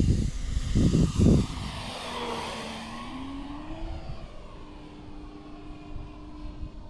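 Radio-controlled Cessna 208 Grand Caravan model plane flying past: its propeller noise swells and drops in pitch, then settles into a steady hum as it flies on. A few low thumps come in the first second and a half.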